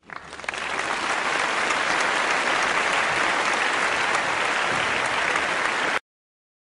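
Crowd applause, swelling quickly at the start and then steady, cutting off abruptly about six seconds in.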